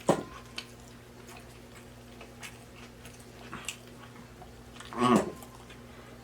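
A man eating with his mouth near the microphone: faint chewing clicks, and two short low non-speech vocal sounds from him, a brief one right at the start that drops in pitch and a louder one about five seconds in. A steady low electrical hum runs underneath.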